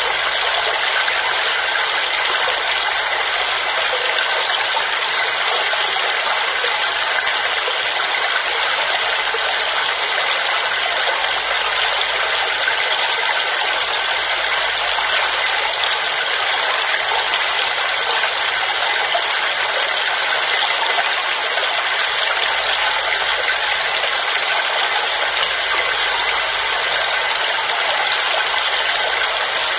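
Waterfall: a steady, unbroken rush of falling and splashing water, bright and hissy with little deep rumble.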